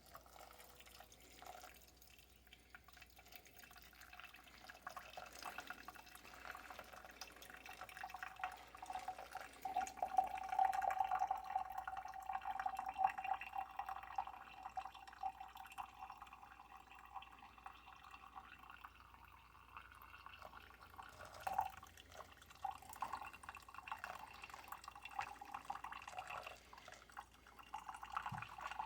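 Hot water poured into a homemade pour-over coffee maker, coffee trickling and dripping through the cloth filter into a cup. A faint steady ringing tone of the running stream comes up around ten seconds in and fades later.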